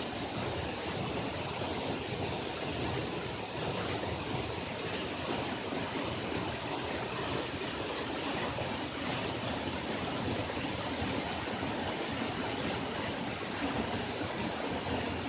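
Waterfall's falling water rushing in a steady, even roar.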